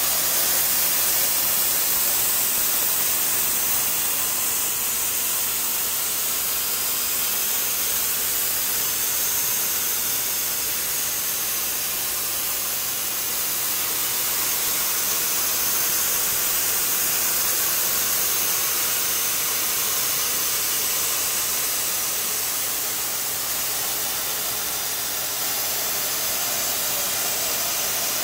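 Steady high hiss of a running BCF yarn line, its yarn-wrapped godet rolls spinning at speed. The sound is even and unbroken, with no beat or change.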